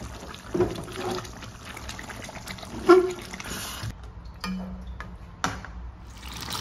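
Steel ladle stirring thick mutton curry in a stainless-steel kadai, scraping and knocking against the pan, with a sharper clink about three seconds in.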